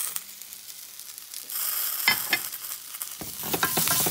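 Sizzling of hot oil and vegetables in a stainless steel pan as browned lamb shanks and their juices are slid back in from a plate. The sizzle is fainter for the first second and a half, then swells, with a few sharp clicks and knocks about two seconds in and again near the end.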